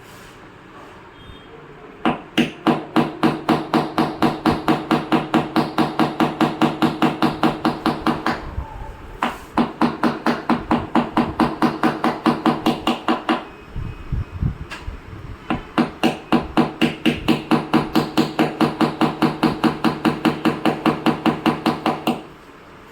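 Rapid light hammer taps on a car's sheet-metal body panel, about five a second, each with a short metallic ring. They come in three runs with brief pauses: paintless dent repair tapping on the dented panel.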